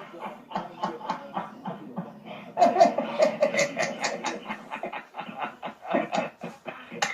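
A person laughing in a long run of short repeated bursts, with a brief break about five seconds in.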